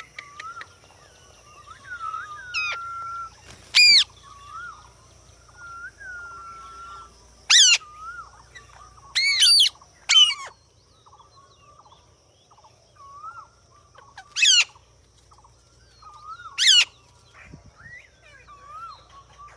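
Indian ringneck parrots calling: loud, short, harsh screeches about half a dozen times, with softer whistled notes and chirps in between.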